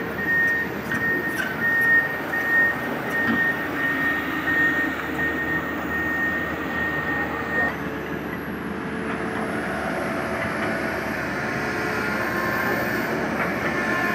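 Komatsu excavator's diesel engine running steadily. For the first half a high electronic alarm beeps regularly, a little faster than once a second, then stops.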